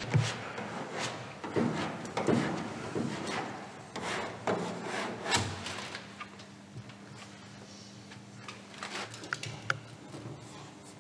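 Paper stencil and masking sheets rubbed, rustled and pressed against a car's painted body panel, with scattered knocks and scrapes that thin out after about six seconds.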